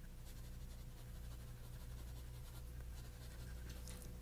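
Pepper being shaken from a shaker over catfish fillets: faint, fine scratchy tapping over a steady low electrical hum.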